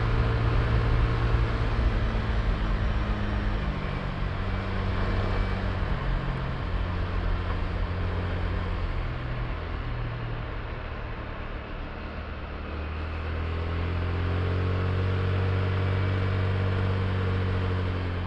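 Honda Click i scooter's single-cylinder engine running under way, with wind and road noise over it. The engine note falls over the first several seconds as the throttle eases, then climbs again about thirteen seconds in and holds.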